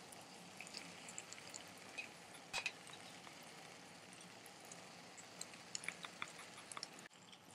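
Faint, soft scrapes and small clinks as thick vegetable masala is tipped from a glass bowl onto rice in a non-stick pan, with one sharper clink about two and a half seconds in. Near the end a wooden spatula spreads the layer with a few light ticks.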